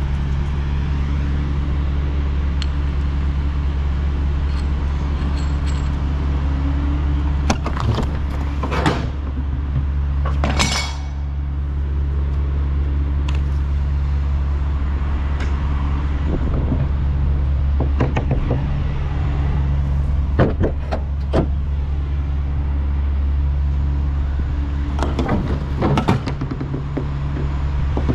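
A big truck's diesel engine running steadily, heard from inside the cab, with several sharp knocks and rattles over it.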